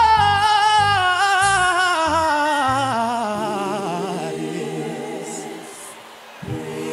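Male gospel singer holding a long high note with vibrato, sliding slowly down in pitch and fading away over about four seconds above soft instrumental accompaniment. A new accompaniment chord comes in near the end.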